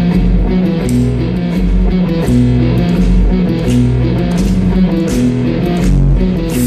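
Live rock music: the instrumental intro of a song, with guitar over a repeating low riff and a steady beat, before the vocals come in.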